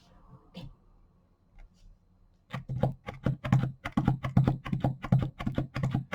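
Paint being shaken in its container by hand: a fast, even run of sharp clicking rattles, about five a second, starting about two and a half seconds in, after a few faint clicks.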